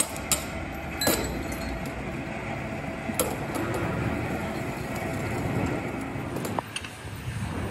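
Steady factory machinery noise with sharp metallic clinks, a few scattered through it, one every second or two at most.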